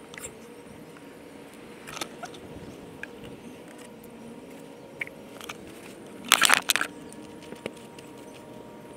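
Plastic oil bottles and a funnel being handled and set down, giving scattered light clicks and knocks, with a brief burst of rattling clatter about six and a half seconds in.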